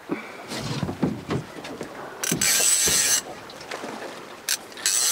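Shimano Tranx 300 baitcasting reel working in short mechanical bursts as a big chinook salmon is played to the net. There are two loud bursts, one about two seconds in and a shorter one near the end, with quieter knocks before them.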